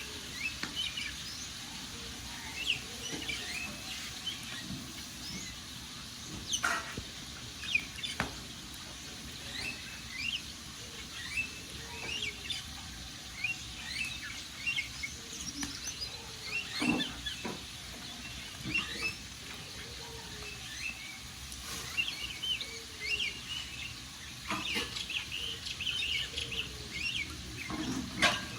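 Wood fire crackling, with several sharp pops, under many short, high chirps from small birds.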